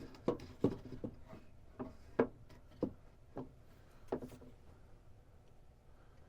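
A run of light knocks and clatters, like wooden pieces and small objects being handled and set down, about a dozen over four seconds, some with a short ringing tone.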